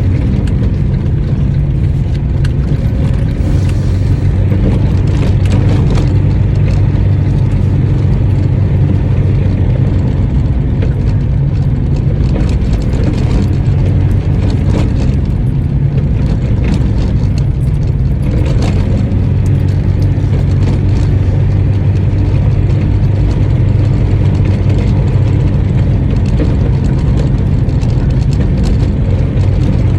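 Engine of a licence-free microcar (voiture sans permis) running while driving, a loud, steady hum that holds one pitch throughout.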